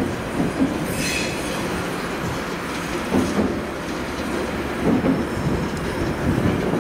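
DB class 232 'Ludmilla' diesel locomotive 232-079 rolling slowly over yard points, its Kolomna 16-cylinder two-stroke diesel running with a steady low rumble. The wheels knock over rail joints and frogs four times, and there is a brief wheel squeal about a second in.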